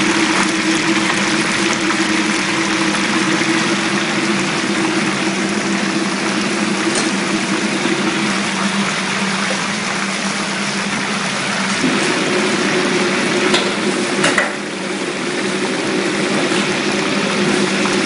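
Soft shell crabs deep-frying in a wok of hot oil, sizzling steadily, with a metal ladle stirring them and clicking against the wok a few times. A steady low hum runs underneath.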